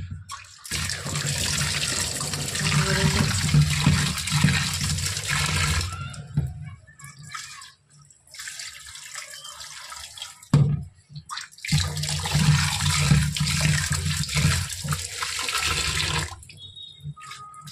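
Kitchen tap water pouring into a plastic bowl of raw mutton in a stainless steel sink as the meat is rinsed. The tap runs for about five seconds, then there is a fainter spell as the rinse water is tipped out and a knock, and the tap runs again for about five seconds.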